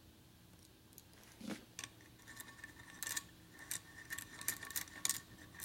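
Light metal clicks and taps as an Allen key and a small steel part are worked into an aluminium Sportster rocker box cover. The clicks come irregularly from about two seconds in, some with a faint ring.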